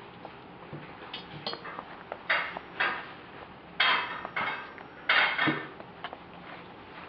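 Italian greyhound puppy gnawing a hard gobstopper candy, the candy clacking and scraping against its teeth in about five short crunching bursts with small clicks between them.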